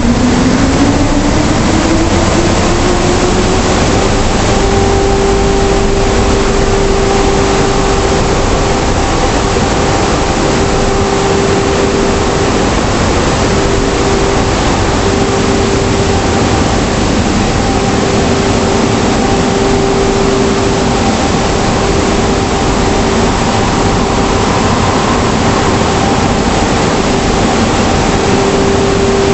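Car wash drying blowers spinning up. Their motor tone rises over the first few seconds, then holds steady under a loud, continuous rush of air.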